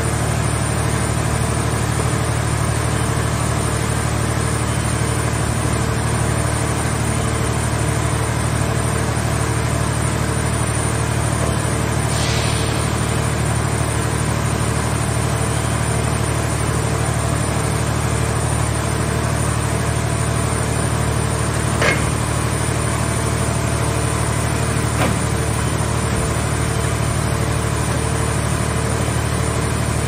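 Portable car-shell baler's hydraulic power unit running steadily, a continuous low engine drone while the grab arm works. A short hiss about twelve seconds in, and two sharp knocks about two-thirds of the way through, three seconds apart.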